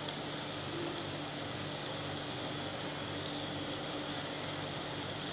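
Steady low machine hum with an even hiss.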